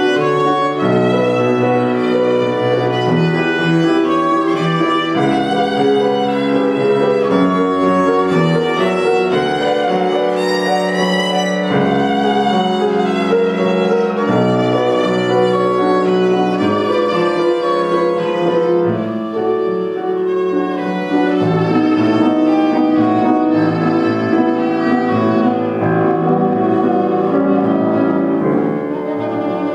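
A child playing a violin melody over a piano accompaniment, in a short classical piece, with the notes wavering in vibrato.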